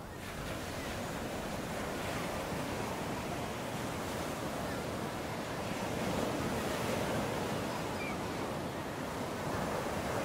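Sea surf washing on the shore, a steady rush of waves fading in over the first second, with wind buffeting the microphone.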